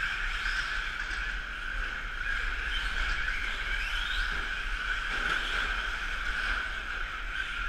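Several electric 1/10-scale 4x4 short-course RC trucks racing, their motors making a steady high whine, with short rising and falling glides as they speed up and slow down.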